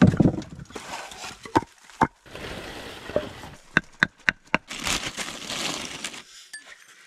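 Firewood logs and sticks being set down and knocked together while a fire is laid, with a heavy thump at the start and several sharp knocks of wood on wood. Near the end, a plastic zip bag rustles for a second or two.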